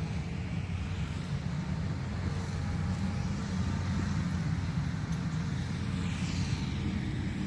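Steady low rumbling noise, with a faint high falling whistle about six seconds in.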